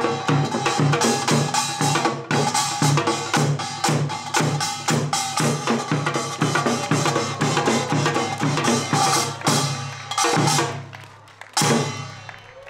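Drum-led percussion music beating a fast, steady rhythm. The strikes thin out near the end and stop with one last stroke that rings away.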